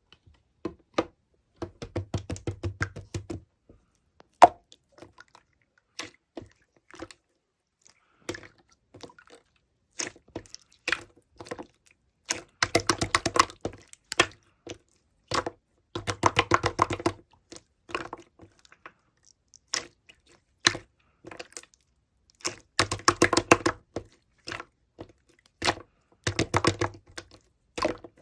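Slime being pressed and squeezed by hand, giving dense runs of rapid clicking and crackling pops about a second long, with scattered single clicks and pops between them.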